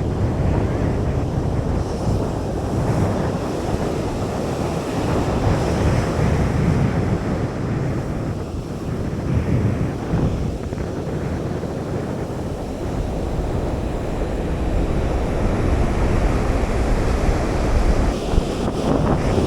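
Surf washing on a beach, with wind buffeting the microphone: a continuous rushing noise, heaviest and rumbling in the low end, that swells and eases slightly.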